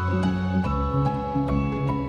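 Soft background music: sustained bass notes under a melody of struck, ringing notes that change every half-second or so.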